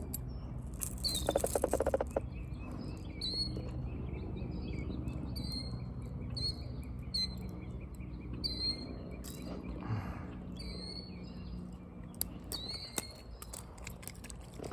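A small bird chirping over and over in short, downward-sliding notes, roughly one every second, over a low steady background. A brief buzzy rattle sounds about a second in, and there are light handling noises.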